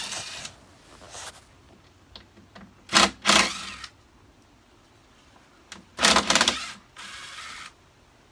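Ratchet wrench clicking in three quick bursts about three seconds apart, as the bolts holding the stock license plate bracket on the spare-tire carrier are undone.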